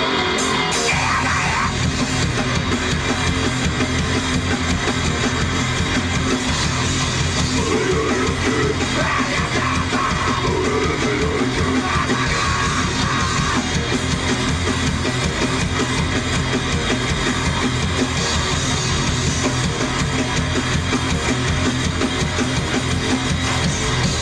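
Grindcore band playing live at full volume: distorted electric guitar, bass and drums in a dense, unbroken wall of sound.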